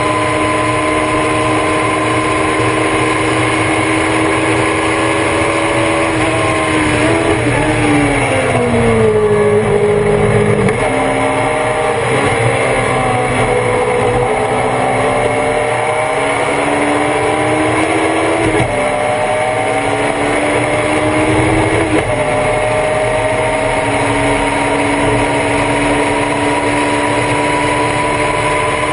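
Race car engine heard from on board, running at high revs, then dropping in pitch under braking with downshifts about a quarter of the way in. It then climbs again through a series of upshifts, each marked by a step in pitch, and ends back at steady high revs.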